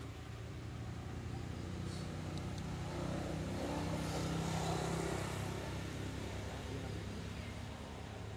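A motor vehicle's engine passing by, a low hum that swells to its loudest about halfway through and then fades.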